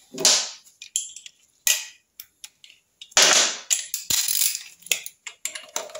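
Metal hand tools and sockets clinking and clattering as they are picked up and handled: a string of sharp, irregular knocks with a longer clatter about three seconds in.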